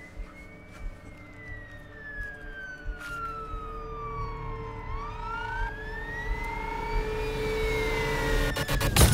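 Police siren wailing, slowly rising and falling in pitch and growing louder as it approaches. A sudden loud burst of noise comes right at the end.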